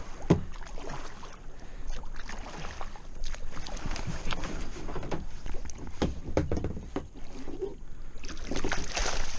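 Kayak paddle strokes splashing in the water, with irregular knocks against the hard plastic hull of a sit-on-top kayak. A longer patch of water splashing comes near the end, beside the hull where a speared fish lies at the surface.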